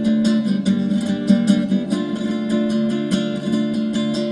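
Background music led by a strummed acoustic guitar, with a steady strumming rhythm.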